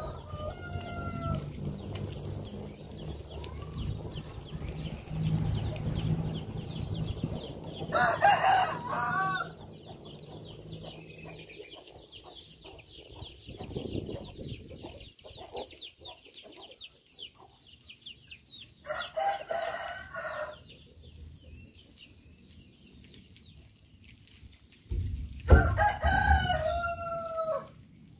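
Domestic roosters crowing three times, each crow a drawn-out call of a second or two, the last ending in a falling tail. A low rumble runs under the first part, and a low thump comes just as the last crow starts.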